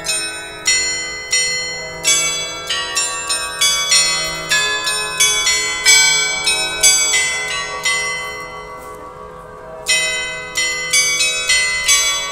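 Facade glockenspiel, a vertical row of bells, struck in a quick running tune, each note ringing on over the next. The strikes pause for about two seconds two-thirds of the way through, leaving the bells ringing out, then start again.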